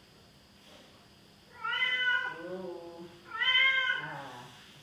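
Ginger domestic cat meowing twice, each call about a second long and dropping in pitch at the end: begging while food is being dished up beside it.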